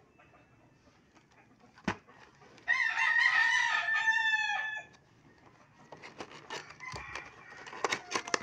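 A rooster crows once, a single call of about two seconds starting near the three-second mark. A sharp click comes just before it, and clicking and crinkling of the cardboard box being handled follow it.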